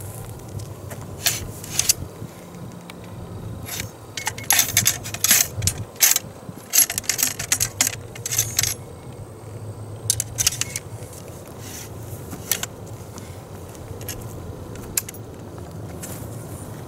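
Ramrod clinking and scraping in the barrel of a Model 1842 rifle musket as the charge is rammed down the muzzle: a run of quick metallic taps, thickest in the middle seconds, over a low steady rumble of wind.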